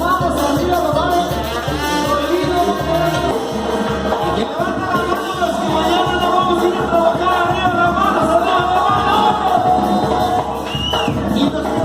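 Dance music with singing over a steady, driving beat.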